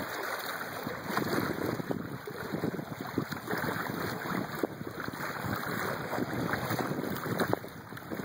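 Wind buffeting the microphone over the rush and splash of water along the hull of a moving boat: a steady, crackly noise.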